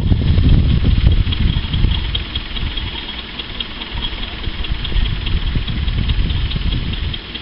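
1973 Dodge W500 digger derrick truck's engine idling, a little louder in the first two seconds and then settling lower and steady.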